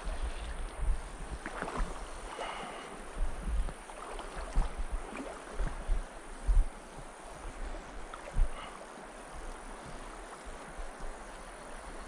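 Shallow mountain stream running over cobbles, with irregular low gusts of wind buffeting the microphone.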